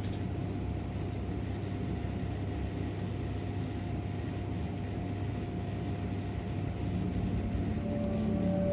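Steady low hum and hiss with a faint held tone. Sustained bell-like music tones fade in near the end.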